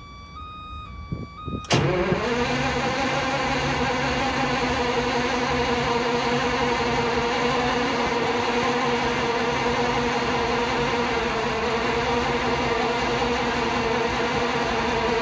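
Background music for about the first second and a half, then the Morbark 2355 chipper's Caterpillar C27 V12 diesel cranks briefly, catches and settles into a steady run on a cold start.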